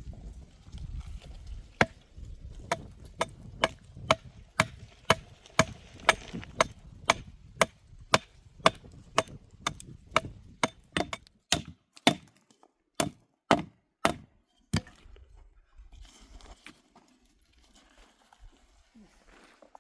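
A long series of sharp chopping or hammering blows, about two a second, slowing toward the end and stopping about three-quarters of the way through.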